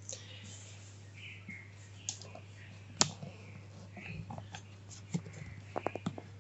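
Scattered clicks from the oscilloscope's front-panel controls, a detented knob being turned in steps, uneven in spacing with a quick run of clicks near the end, over a steady low hum.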